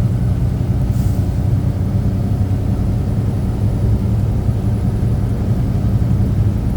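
Semi truck's diesel engine and road noise droning steadily inside the cab while driving, with a short hiss about a second in.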